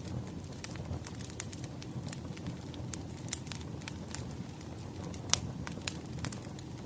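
Wood fire crackling: irregular sharp pops and snaps over a low steady rumble, with one louder pop a little past five seconds in.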